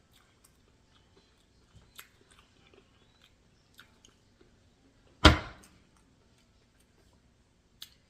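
Quiet close-up chewing of a sandwich, with scattered soft mouth clicks. A single loud thump lands a little past five seconds in.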